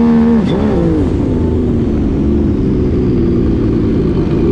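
Turbocharged three-cylinder Sea-Doo RXP-X jet ski engine running loud under throttle on the water. Its note dips sharply and recovers about half a second in, then holds a steady, lower pitch over the constant rush of spray.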